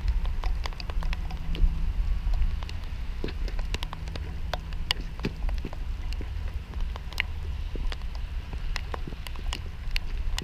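Rain with drops striking the camera as many irregular sharp ticks, over a steady low rumble.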